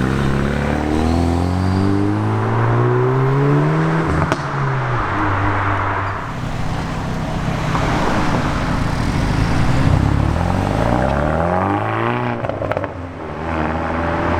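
Hyundai i30N's turbocharged 2.0-litre four-cylinder accelerating hard, its exhaust note rising in pitch for about four seconds. A sharp crack comes from the exhaust as the pitch drops back, and the engine revs up again near the end.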